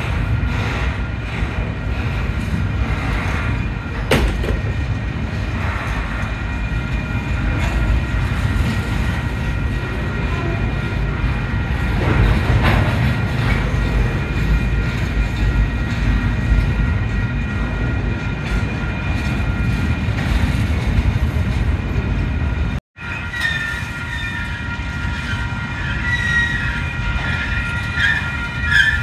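Long double-stack container freight train rolling past a grade crossing: a steady rumble of wheels and cars, with faint steady high tones over it. The sound drops out for a moment about 23 seconds in, and then a wavering high ringing or squeal joins the rumble.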